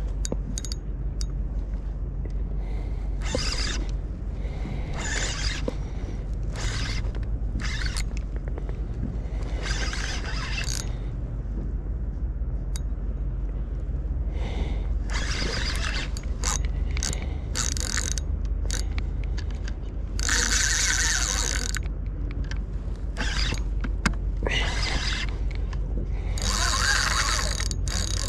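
Spinning reel being cranked against a hooked fish: its gears and drag rattle in repeated bursts of a second or two, with longer runs late on, over a steady low rumble.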